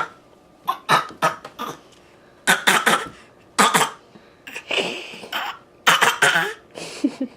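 A toddler making deliberate, playful little coughs as a kind of 'cough talk': a string of short coughs, some single and some in quick groups of two or three, with brief pauses between. They are put on, not a sign of illness.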